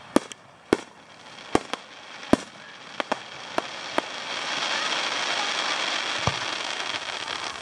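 Aerial fireworks: a string of about ten sharp bangs from bursting shells in the first four seconds and one more near the end. From about four seconds in, a dense, steady hiss of crackling swells up and holds.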